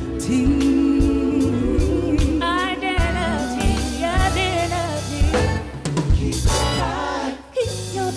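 A live gospel-soul vocal ensemble sings with a band. A lead voice runs ornamented, wavering phrases over a drum kit and bass, and the music briefly drops out near the end.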